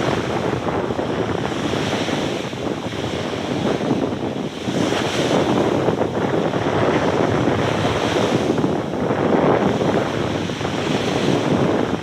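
Ocean surf breaking and washing up on the shore, swelling louder about five seconds in and again near the nine-second mark.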